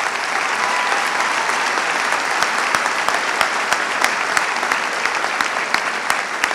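Audience applauding: a steady stretch of many hands clapping, with single sharp claps standing out.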